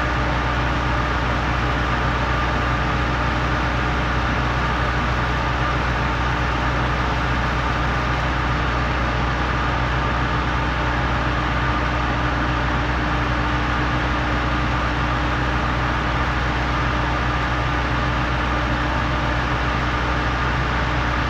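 Heavy engines running steadily as a Putzmeister trailer concrete pump works with a ready-mix truck feeding its hopper. It is a constant drone with a steady hum and no separate strokes or pauses.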